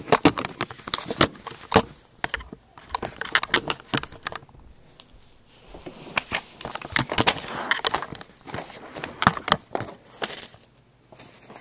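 Handling noise: an irregular run of sharp clicks, crackles and rustles, with a quieter stretch a little before the end.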